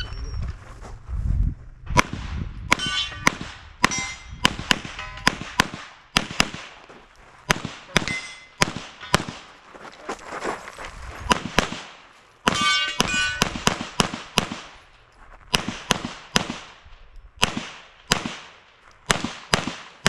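Shot timer's start beep, then a pistol firing strings of quick double shots, with short pauses between groups as the shooter moves through a USPSA stage. Some hits are followed by metallic ringing, typical of steel targets being struck.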